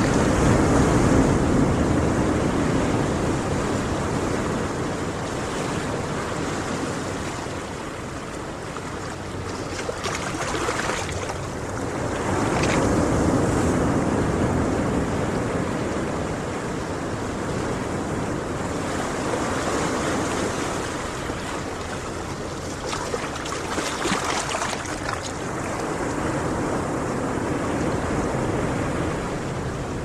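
Ocean surf on a beach: waves breaking and washing in, a steady rushing noise that swells and eases every several seconds.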